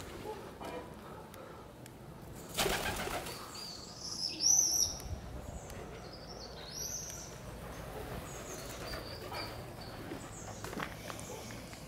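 Feral pigeons taking off with a clatter of wing beats about two and a half seconds in, followed by high, arching bird chirps, the loudest sound, and a few more near the middle.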